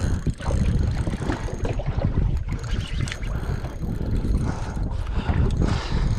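Wind buffeting the microphone over water lapping and slapping against a small boat's hull, a steady low rumble with a few short knocks.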